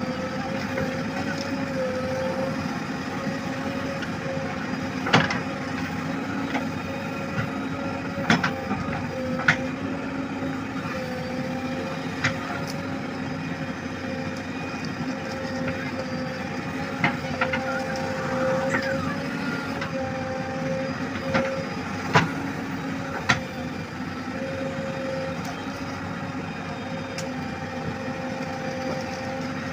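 JCB backhoe loader's diesel engine running steadily while it digs soil, with sharp metallic clanks from the bucket and arm now and then, about eight in all.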